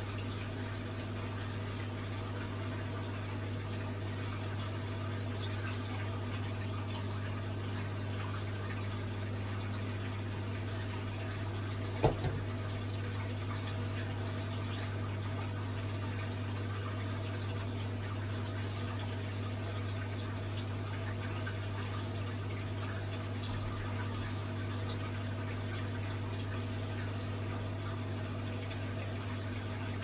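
1961 Hoover Keymatic 3224 washing machine running mid-cycle: a steady mains hum with water rushing and trickling in the tub. A single sharp click about twelve seconds in.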